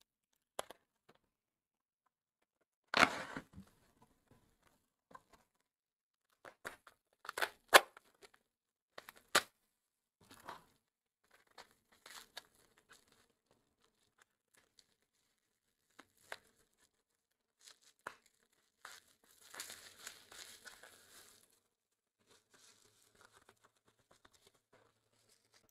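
Bubble-wrap packaging being slit with a snap-off craft knife and pulled apart by hand: scattered sharp crackles and tearing sounds, with a longer stretch of crinkling about three-quarters of the way through.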